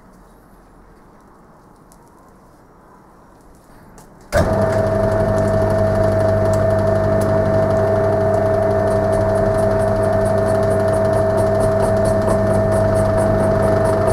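Faint room tone, then the belt-driven homemade lathe's motor starts abruptly about four seconds in and runs steadily with a constant hum, the spindle turning at the lowest pulley speed.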